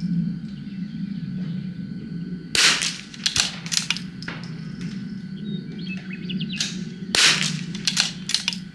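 CZ .22 rimfire rifle shooting SK ammunition: two sharp shots about four and a half seconds apart, with several fainter cracks between them.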